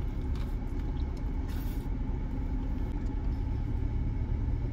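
Steady low rumble of the Jeep's idling engine, heard inside the cabin.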